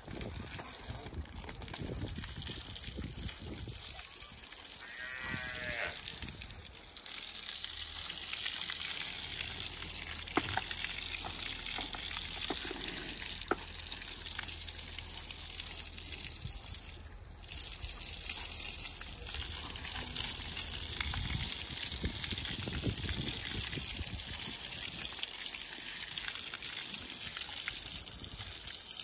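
Cattle calling, with one rising call about five seconds in, over a steady high hiss.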